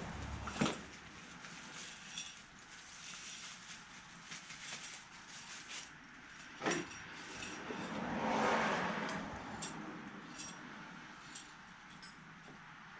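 Hand work on parts and tools: light clinks and ticks, two sharper knocks (one near the start, one about seven seconds in), and a longer rustling swell around the eight-second mark.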